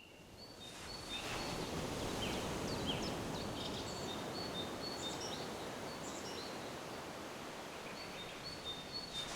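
Outdoor ambience: a steady rushing noise with birds chirping over it, in repeated short high whistles and quick falling chirps.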